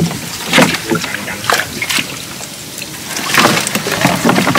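Water splashing and trickling off a netted lú fish trap as it is hauled out of the river over the side of a boat. Several sharp knocks and rustles from the net and its frame come in the first two seconds and again after about three seconds.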